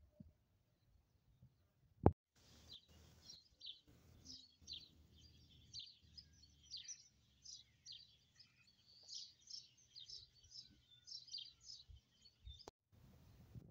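Small birds chirping: many short, high chirps in quick succession. They start after a sharp click about two seconds in and stop abruptly with another click near the end.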